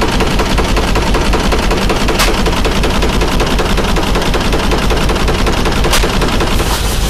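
Case steam traction engine running, its exhaust beating out of the smokestack in a fast, even train of sharp chuffs over a low rumble. Two sharper clicks stand out, about two and six seconds in.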